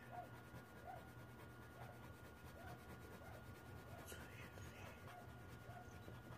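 Faint scratching of a pencil shading on paper, clearest about four seconds in. Under it are a low steady hum, a thin steady whine and soft short chirps repeating about once a second.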